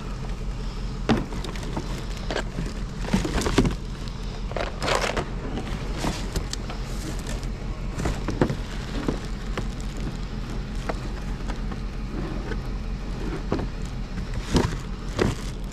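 Hard plastic and metal objects knocking and clattering as hands rummage through a plastic bin of scrap, over a steady low hum.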